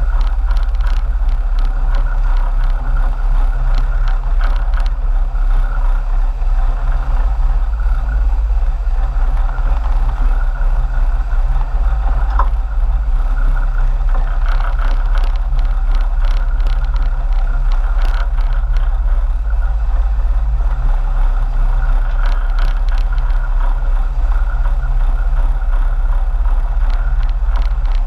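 Sportfishing boat's engines running steadily underway: a constant low drone with a mid-pitched hum over it, unchanging throughout.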